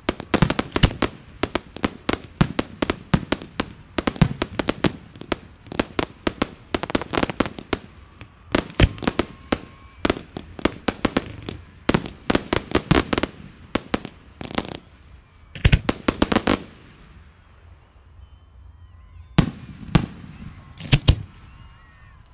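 Fireworks display: a rapid barrage of sharp reports from firework cakes and aerial shells, many a second, thinning out after about seventeen seconds to a few loud single booms near the end.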